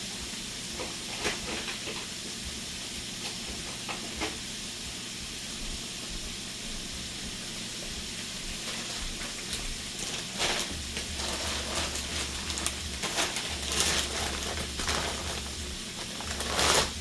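Food frying in hot oil in a pan: a steady sizzle with scattered pops and crackles that grow busier and louder in the second half, with a loud burst near the end.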